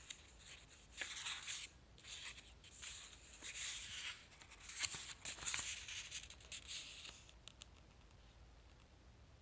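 Paper pages of a printed book rustling and swishing as a hand sweeps over them and turns them, in a run of irregular soft swishes with a few crisp clicks that dies away near the end.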